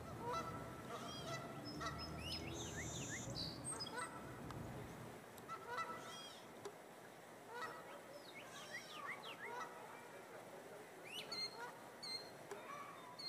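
Several birds calling: many short chirps and whistles scattered throughout, with some longer honk-like calls in the first few seconds. A low rumble underneath dies away about five seconds in.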